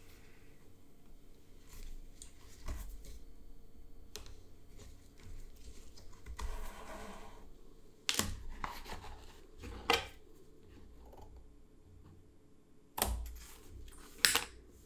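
Quiet handling sounds of hand leatherwork: soft rubbing and rustling as thread is drawn through the leather, broken by a few sharp clicks and knocks as the piece and tools are handled. The loudest click comes near the end, as a lighter is struck to singe the thread ends.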